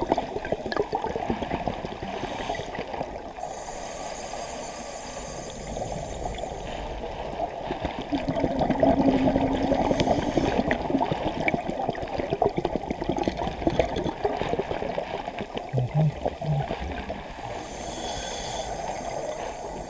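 Scuba diver breathing through a regulator, heard underwater through a camera housing: a hiss of inhaled air a few seconds in and again near the end, and a louder stretch of exhaled bubbles gurgling in the middle.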